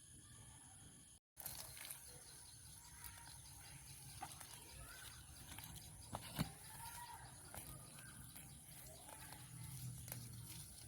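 Chickens making soft, faint calls while feeding, with scattered light clicks and one sharper click about six and a half seconds in. The sound cuts out for a moment a little over a second in.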